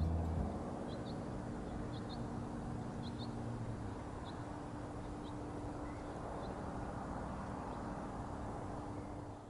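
Outdoor ambience: a steady low hum with a few short, high bird chirps, several in pairs, coming about once a second and thinning out in the second half.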